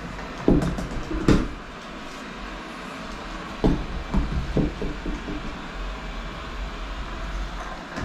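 Robot vacuum running with a steady low motor hum, knocking against the wooden ramp transition at the step between two hardwood floors. There are two loud knocks in the first second and a half and a quicker run of lighter knocks around four seconds in.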